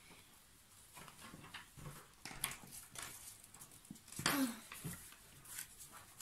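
Faint scratching and rustling of a felt-tip pen and paper cards on a wooden table, with a short squeak-like sound about four seconds in.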